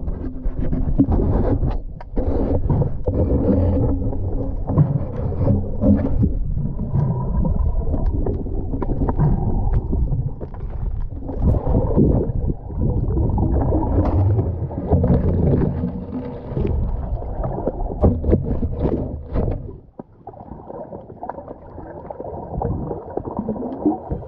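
Muffled water noise from swimmers in the sea: splashing and bubbling with scrapes and knocks. About four-fifths of the way through it drops quieter.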